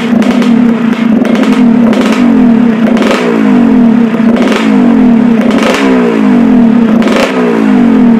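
Yamaha RX King's two-stroke single-cylinder engine running at a steady idle, blipped with the throttle about five times, while its carburettor is being set.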